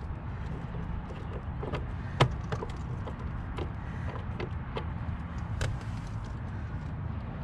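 Scattered small clicks and taps of wires and terminal hardware being handled inside an irrigation controller, the sharpest about two seconds in, over a steady low rumble.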